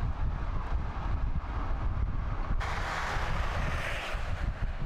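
Wind rumbling on the microphone over the road noise of a moving car. A little past halfway a hiss of tyre and road noise cuts in suddenly and fades out about a second and a half later.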